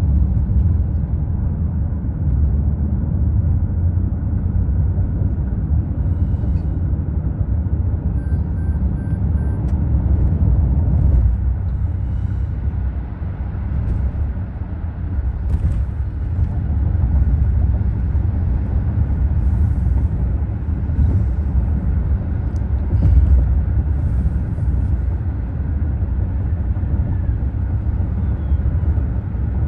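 Steady low road rumble inside a moving car's cabin: tyre and engine noise as the car drives along an expressway.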